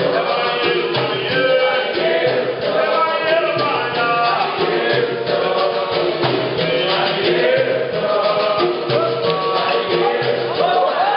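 Capoeira Angola roda music: berimbaus, pandeiro and atabaque keep a steady rhythm while a group of voices sings along.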